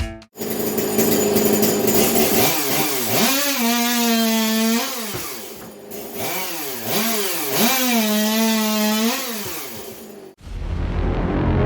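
Custom Stihl two-stroke chainsaw revved to full throttle twice: each time the engine climbs in a few quick blips, holds a high steady pitch for about a second, then drops back. The saw sound cuts off suddenly near the end.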